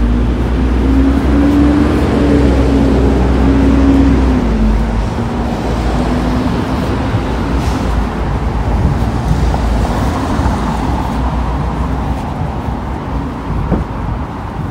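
A city bus engine running close by, its pitched hum rising slightly and then dropping away after about four seconds, followed by steady street traffic noise.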